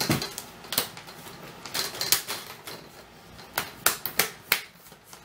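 Plastic laptop screen bezel clips snapping into place as the bezel is pressed around its edges: a run of about eight sharp, irregular plastic clicks.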